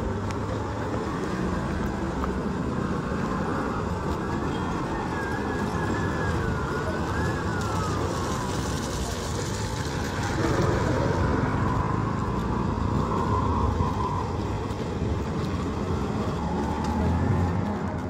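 Street traffic: engines of passing cars and auto-rickshaws running steadily, with a wavering high tone rising and falling a few seconds in.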